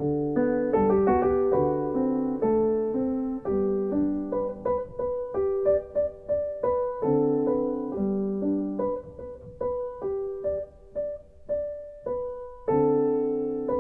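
Solo piano music: slow chords under a melody, each note struck and then fading.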